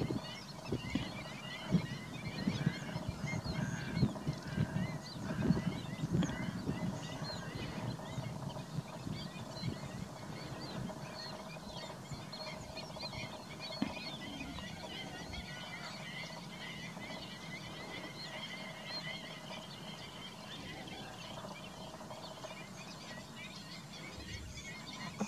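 A large flock of black-winged stilts calling in flight, many short calls overlapping; the flock is up because a harrier is disturbing it. Low uneven rumbling runs under the calls for roughly the first eight seconds.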